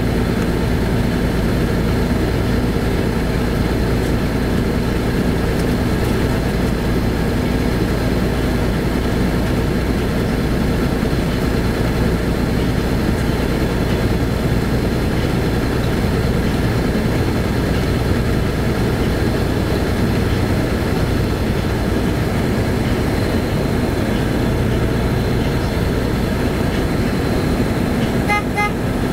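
Steady engine drone and road noise inside a moving vehicle's cab, with a brief high chirp near the end.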